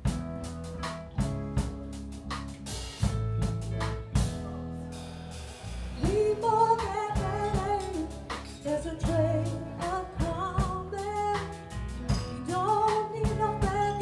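Live pop-rock band playing: drum kit, bass and electric guitar carry the first few seconds, then a woman starts singing about six seconds in, her voice through the PA.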